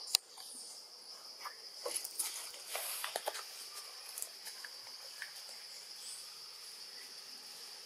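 Steady high-pitched insect drone of forest insects, with a short run of small clicks and rustles about two to three seconds in.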